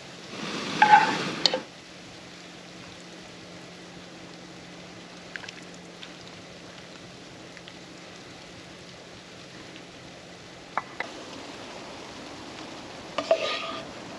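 Food sizzling in a pan, with a utensil scraping and clinking in the pan twice, once about a second in and again near the end, and a few light clicks in between.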